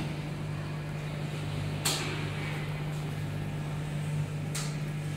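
Steady low machine hum, with two short swishes about two seconds and four and a half seconds in.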